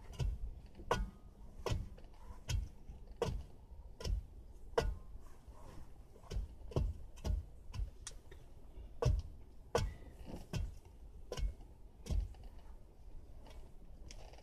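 Repeated thuds of a long-handled digging tool jabbed into the soil at the foot of a wooden post, about one or two strikes a second in an uneven rhythm.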